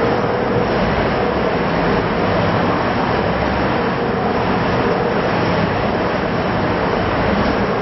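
Trailer-mounted Samba Balloon amusement ride running on a test cycle, its rotating arms and seats swinging, with a steady mechanical running noise that holds even throughout.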